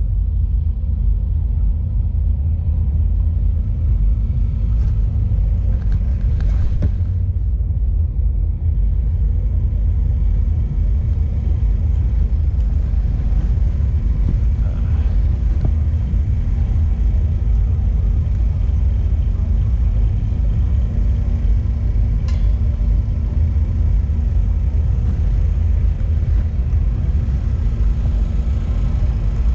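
Steady low rumble of wind buffeting the microphone of a camera carried on a moving bicycle.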